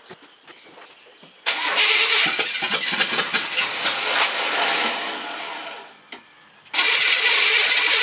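GM truck engine cranked on the starter for a test start on a shot of gas poured in by hand: one long crank of about four seconds that tapers off, then a second shorter crank near the end.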